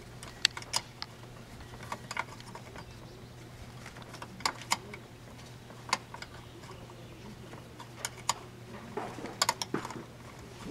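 Scattered light metallic clicks and taps of a small wrench and a ring terminal being worked onto the solenoid coil's positive post in a golf cart's wiring bay, over a faint steady hum.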